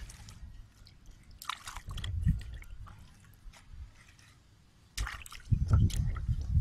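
Water splashing and dripping in two short bouts, about two seconds in and again near the end, as raw chicken feet are rinsed in a stream, with low rumbles mixed in.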